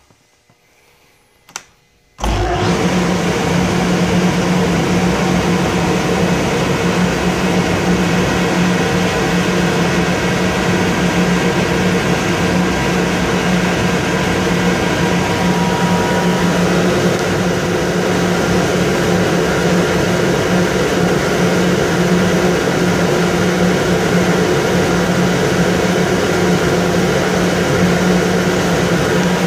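Kaeser AS 31 25 hp rotary screw air compressor starting up: a sharp click, then about two seconds in a sudden onset of loud, steady running noise with a constant hum underneath, holding evenly.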